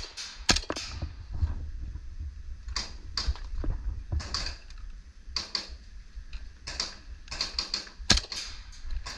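Airsoft guns firing in the game: a dozen or so sharp clicking shots and BB hits at irregular intervals, some single and some in quick pairs, over a low rumble of handling and wind.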